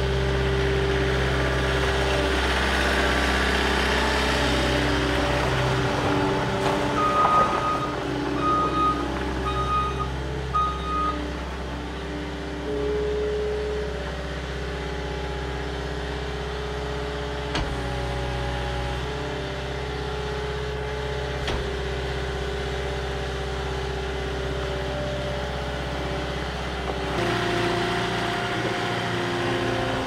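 Caterpillar 242D skid steer's diesel engine running steadily while the machine is driven by remote control. About seven seconds in, its backup alarm beeps four times, about a second apart, as it reverses.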